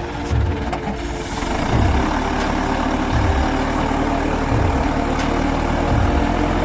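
A logging skidder's diesel engine working hard under a heavy load of trees, growing louder about a second and a half in. A deep bass beat from background music thumps about every second and a half.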